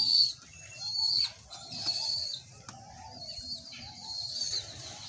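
Pigeon squab begging as an adult pigeon feeds it beak to beak: a run of short, thin, high squeaks, about one a second.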